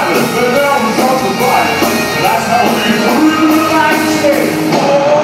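Live rock band playing loud in a concert hall, heard from the balcony: drums with cymbals and a sung line over a dense, hall-echoing mix.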